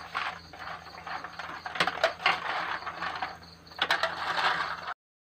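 Blood cockles boiling in a wok over a wood fire: a steady crackling and clicking, with a few sharper clicks about two seconds in and again near four seconds, cutting off abruptly just before the end.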